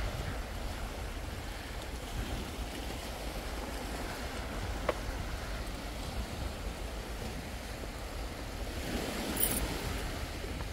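Small sea waves washing steadily over rocks and a pebble beach.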